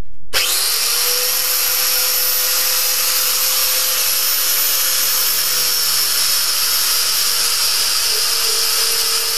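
Angle grinder with a coarse wire wheel whining up to speed just after the start, then scrubbing surface rust off a steel truck frame: a steady whine over a dense hiss.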